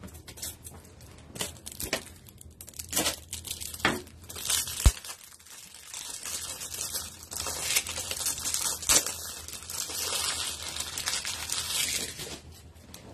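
Foil trading-card booster-pack wrapper crinkling and tearing as it is opened. Several sharp clicks come in the first five seconds, the loudest about five seconds in. The crinkling is thickest from about six to twelve seconds in.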